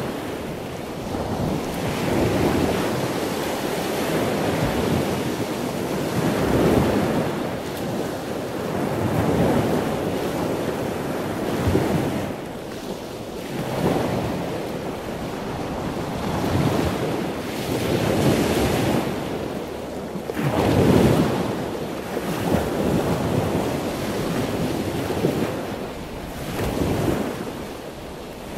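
Wind buffeting the microphone in irregular gusts, rising and falling every few seconds, over the wash of small waves on the shore.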